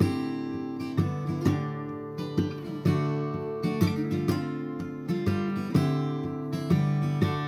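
Intro music: an acoustic guitar picking and strumming chords at an easy, even pace.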